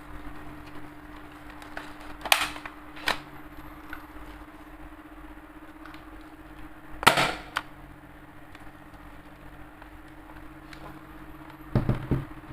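Sharp mechanical snaps from a spring-powered airsoft M16 rifle: two pairs, about two to three seconds in and about seven seconds in, then a quick rattle of clicks near the end. A steady low hum runs underneath.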